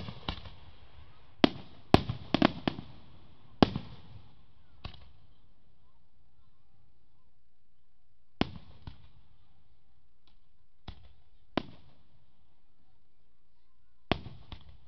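Aerial display fireworks going off: a quick string of sharp bangs in the first four seconds, then single bangs a few seconds apart, each trailing off in a short echo.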